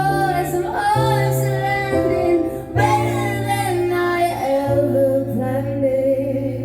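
A woman singing a slow ballad over sustained piano chords, holding a long note in the last couple of seconds.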